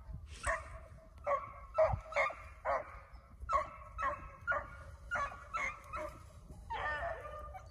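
Beagles baying as they run a rabbit's trail: a string of short chop barks, about two a second, with a longer drawn-out bawl near the end.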